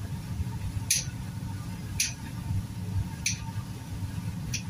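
Kitchen shears snipping through chicken feet: four sharp snips, roughly a second apart, over a steady low rumble.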